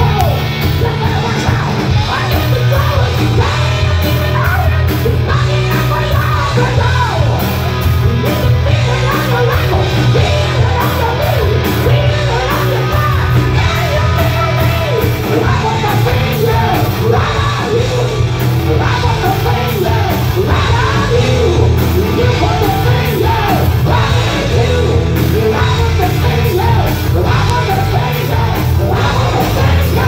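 Loud live rock music: a male vocalist yelling and singing into a microphone over a full band with drums.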